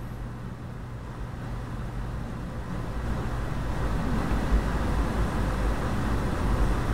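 Road traffic noise: a steady rushing that grows gradually louder, as a vehicle approaches, over a low steady hum.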